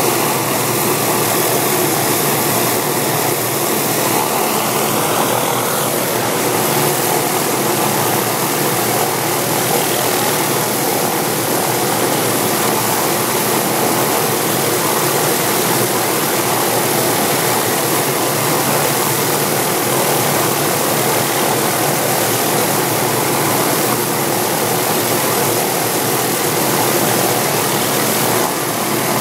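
Hughes/MD 369E helicopter's turbine engine running steadily during startup on the pad, a constant rushing noise with the main rotor turning. A high whine rises slightly over the first few seconds and cuts off about six seconds in.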